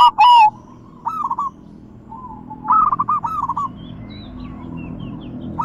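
Zebra dove (perkutut) cooing: phrases of quick rolling notes, loudest right at the start, a short phrase about a second in and a longer run of notes about three seconds in.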